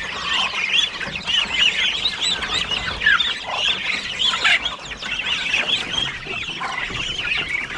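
Many chicken chicks peeping at once: a dense run of short, high chirps overlapping without pause, with an occasional lower cluck from a hen.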